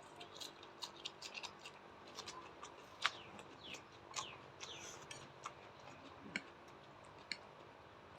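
Close-up eating sounds: crisp, irregular crunching clicks from chewing raw red onion, faint.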